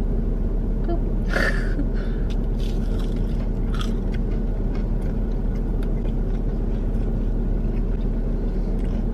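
Steady low rumble of an idling car engine heard inside the cabin, with chewing and a few short clicks and rustles of food packaging, the clearest about a second and a half in and again near four seconds.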